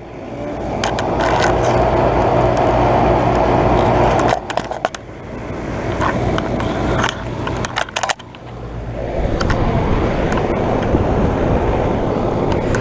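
2012 Bryant Legacy central air conditioner's outdoor condenser unit running: a steady rush of fan air over a low compressor hum, with light clicks. The unit is shaking enough to be heard.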